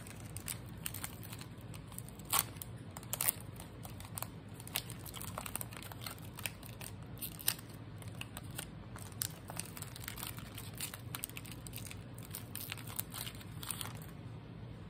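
Foil Pokémon booster pack wrapper crinkling and tearing as it is opened by hand, in scattered sharp crackles, over a faint steady low hum.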